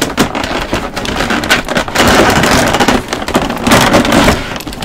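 Clear plastic blister packaging crinkling and crackling as it is handled and pulled open, loudest about two seconds in and again near the end.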